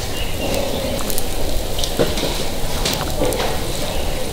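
Batter sizzling steadily in a hot takoyaki pan, with a few sharp clicks as the bamboo skewer knocks against the pan.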